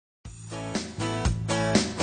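Background music with a steady beat, starting about a quarter of a second in.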